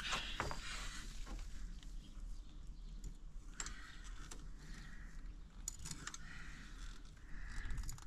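Faint scattered clicks and scrapes of a caulking gun being squeezed and worked into a mortar joint, laying beads of lead sealant.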